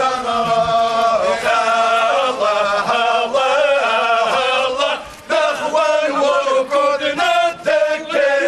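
A group of men chanting together as they walk, a religious funeral chant, in long sustained phrases with a short break about five seconds in.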